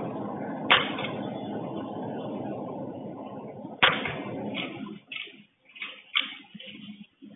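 Water running steadily, then shut off about five seconds in, with two sharp clicks while it runs; afterwards faint scattered knocks and rustling.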